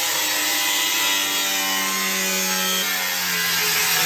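Cordless angle grinder grinding into metal: a steady motor whine under a loud rasping hiss, the motor note shifting slightly about three seconds in.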